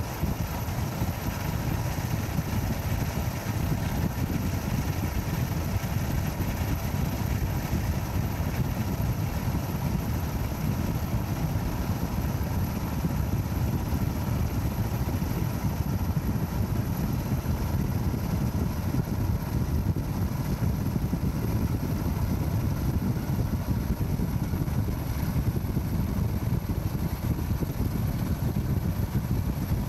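A boat engine running steadily, a continuous low rumble with no sudden bangs.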